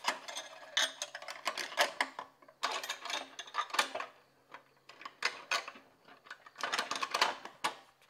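Metal ceiling-mount brackets of a King Electric Smartwave infrared heater clicking and rattling as the heater is worked into them and the loose brackets pivot on their notched plates: a run of irregular sharp clicks and clacks in clusters.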